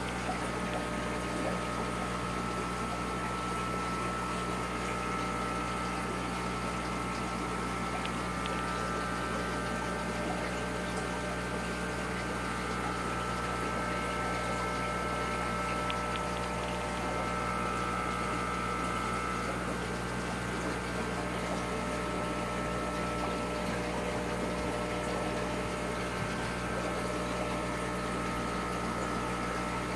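Aquarium pump running with a steady hum and water noise.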